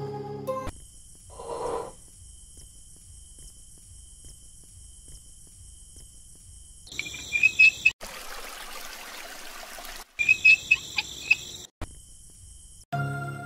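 Outdoor background sound after the background music cuts off: a steady high-pitched insect-like drone, with two short runs of loud, sharp chirps in the second half and a couple of seconds of even hiss between them.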